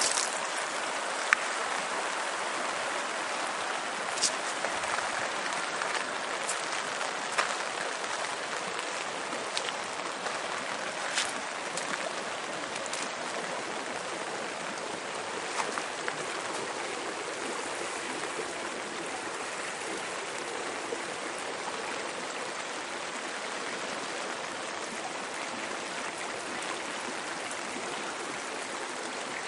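Floodwater of the swollen Wallace River rushing steadily past a small bridge, a constant even roar of water. A few short, sharp ticks stand out over it in the first half.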